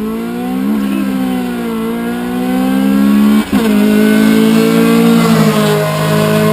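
Honda Civic Si (EM1) four-cylinder VTEC engine with Type R cams, aftermarket intake and exhaust, accelerating hard: the note climbs in pitch, breaks for a quick upshift about three and a half seconds in, then runs high again and eases down slightly near the end as the car goes by.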